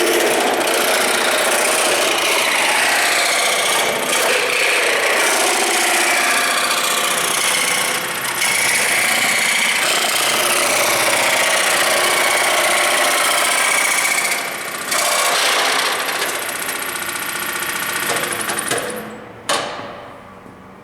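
Oliver scroll saw's reciprocating blade cutting through a piece of plastic, a steady loud rasp. Near the end the cutting noise dies away, followed by a single sharp knock.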